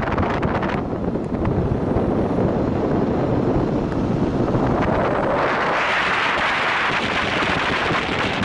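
Wind blowing over the microphone of a camera on a moving electric scooter, with a steady noise underneath. About five seconds in the wind grows stronger and hissier.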